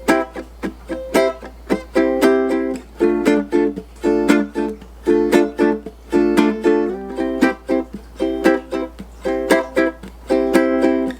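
Ukulele strumming chords in a steady rhythm, with no singing.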